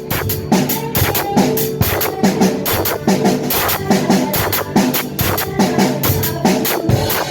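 Music with a drum kit keeping a steady beat over sustained instrumental tones.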